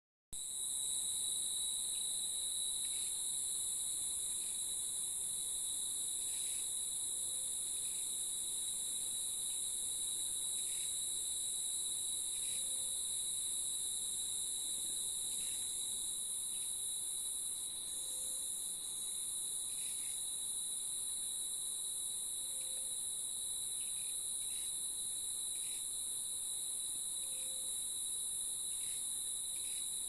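Tropical rainforest insect chorus: a steady, high-pitched drone with a second, lower steady whine beneath it. A faint short low note repeats every five seconds or so.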